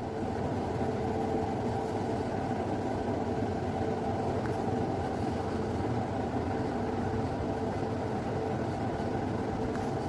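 Steady low background rumble with a faint constant hum, even in level throughout, with no distinct pencil strokes standing out.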